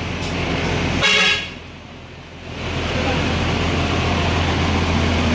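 A bus horn gives one short toot about a second in, over the steady low running of a bus engine as the bus pulls away.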